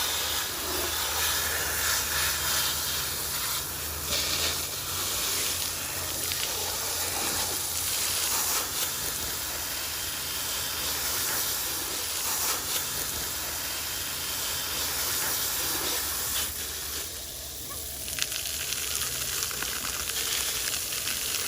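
Water gushing under high pressure from a broken plumbing line that cannot be shut off, a steady hiss. The flow is like a water main's, about 25 gallons a minute.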